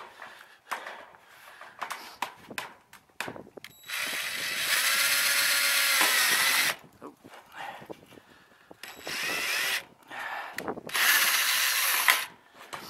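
Cordless drill driving screws into a steel roofing ridge cap: a run of about three seconds starting about four seconds in, whose motor pitch falls slightly near its end, then a short burst about nine seconds in and another run about eleven seconds in. Scattered light clicks and knocks come before the first run.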